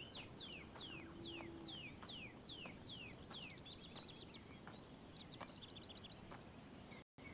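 A bird calling a series of descending whistled notes, about two a second, that turn into quicker fluttering notes partway through, over a faint steady insect hiss. The sound drops out for a moment near the end.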